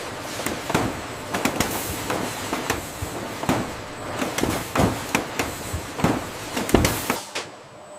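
Factory machinery clattering: irregular knocks and clacks several times a second, with a heavier thud near the end, over a faint steady high whine.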